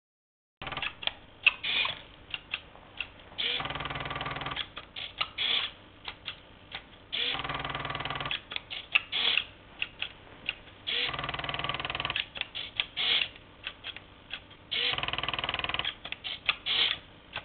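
Homemade servo-driven knitting machine built from an old Epson inkjet printer, running. Its motors whirr in runs of about a second, roughly every four seconds, with clicks and ticks in between as the needles are worked.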